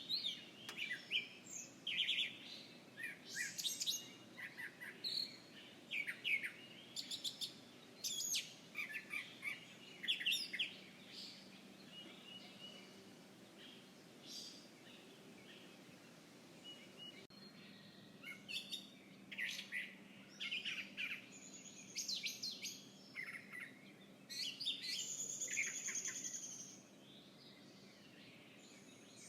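Songbirds chirping and tweeting outdoors in many short, quick calls. The calls are busy at first, thin out in the middle, then pick up again, with a louder call lasting about two seconds near the end. A faint steady low hum lies beneath.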